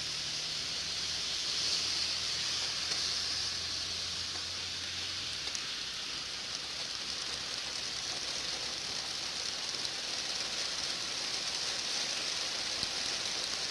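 Steady rain falling, an even hiss with scattered drop ticks. A low hum sits under it for the first five seconds or so, then stops.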